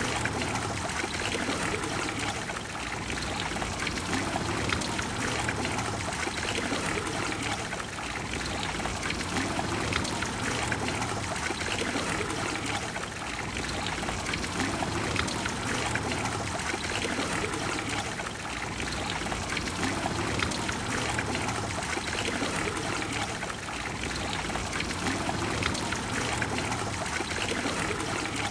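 Water of the Trevi Fountain flowing and splashing into its basin: a steady rush of falling water with gentle swells in loudness every few seconds.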